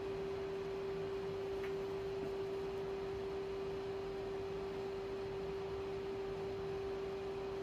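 A steady electrical whine held at one unchanging mid pitch, with a faint low hum beneath it.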